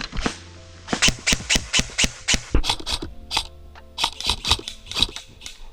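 Background music with a steady beat of sharp drum hits over held tones.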